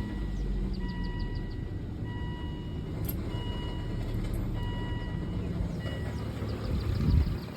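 The five-cylinder engine of a 2003 Volvo V70 runs just after start-up with a low growl. A high-pitched tone sounds briefly about five times, roughly once a second, which is the kind of growling and screeching the owner is worried about. The low rumble swells briefly near the end and then drops.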